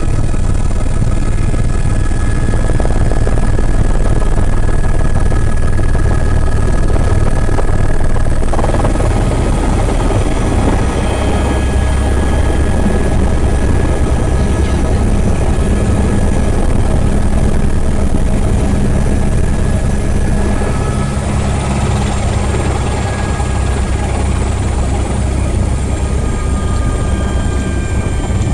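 Helicopter running steadily in flight: a heavy low drone under a high steady whine, which dips slightly in pitch about three quarters of the way through.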